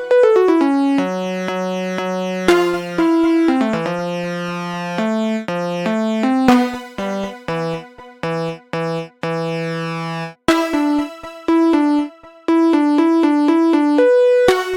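Synthesizer keyboard music: a melody of clean electric-piano-like notes over held lower notes, with short staccato notes and brief gaps in the second half.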